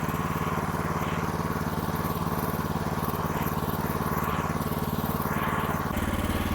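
Gas engine of a Woodland Mills HM126 portable sawmill running steadily at idle, its low note shifting slightly near the end.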